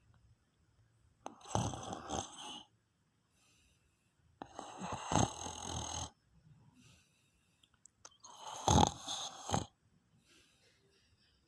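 A person snoring in sleep: three rattling snores, each about a second and a half long, coming roughly every three and a half seconds with quiet breaths between.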